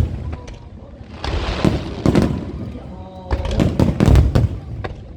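Aerial fireworks going off: sharp shell bursts and booms in clusters, the densest run a little past halfway, with a brief hissing crackle about a second in.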